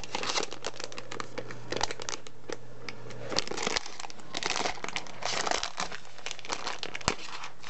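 Shiny plastic blind bag crinkling and crackling in irregular bursts as hands squeeze and twist it, working at the tough packaging to open it.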